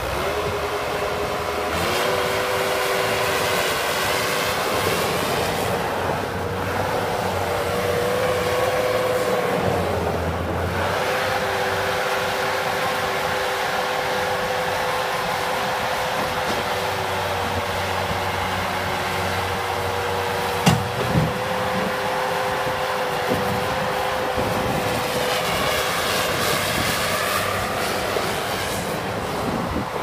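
2005 Bobcat S185 skid steer loader's 56-horsepower diesel engine running steadily with a constant whine over it as the machine drives about and lifts its bucket. There are a couple of sharp knocks about two-thirds of the way through.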